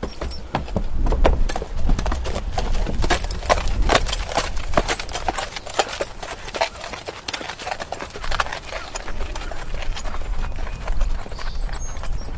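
Horse walking, its hooves clip-clopping in an uneven run of sharp strikes, with a steady low rumble underneath.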